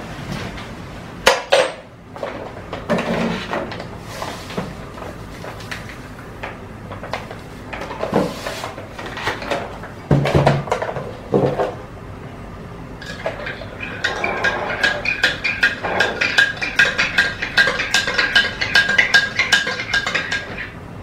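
A metal spoon against a glass cup: scattered knocks and clinks at first, then, from about two-thirds of the way in, quick repeated ringing clinks as the spoon stirs the drink in the glass.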